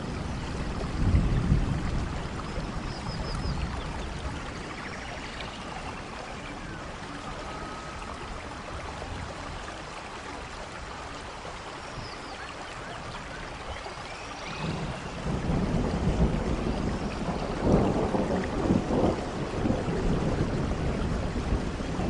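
Steady rain with thunder rolling: a low rumble about a second in that fades away, then a longer, louder rumble building about two-thirds of the way through.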